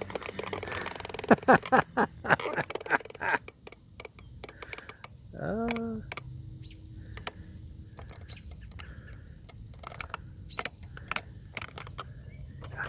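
A camera tripod head squeaking and creaking as it is panned, in a string of sharp squeaks and clicks. They come thickest and loudest in the first few seconds, and there is one longer squeak rising in pitch about halfway through.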